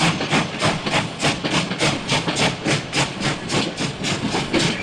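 Steam locomotive chuffing at a steady pace, about four hissing chuffs a second.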